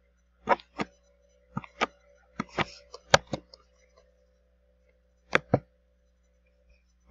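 Sharp clicks from computer controls at a desk, mostly in close pairs: a quick run in the first half and a last pair about five and a half seconds in, over a faint steady hum.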